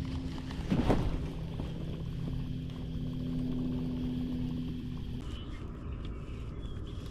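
Boat motor humming steadily over a low rumble, cutting off about five seconds in, with a brief knock about a second in.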